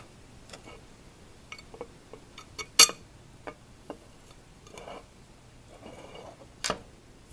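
Scattered light metallic clicks and taps as a drilled aluminum plate and its chips are handled on the drill press table, with a sharp knock about three seconds in and another near the end, and a few soft scrapes between. The drill is not running.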